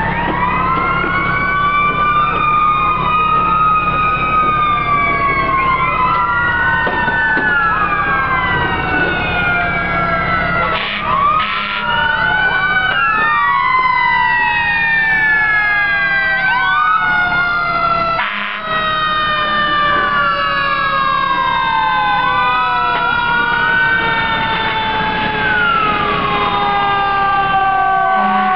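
Several emergency-vehicle sirens from a responding convoy sounding at once: overlapping wails rising and falling, with some long, slowly falling tones among them.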